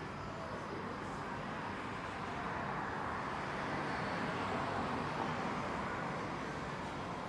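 Steady hum of city traffic with a car driving along the street, swelling to its loudest midway and then easing as it passes.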